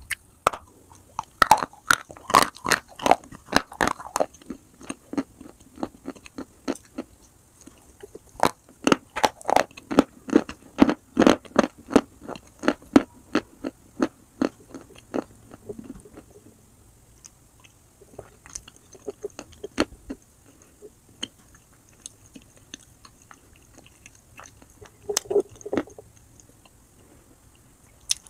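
Close-miked crunching and chewing of dry lumps of edible chalk (pressed white clay). Sharp bites and crunches come in dense runs in the first few seconds and again around the middle, with slower, softer chewing between and after, and a short run of crunches near the end.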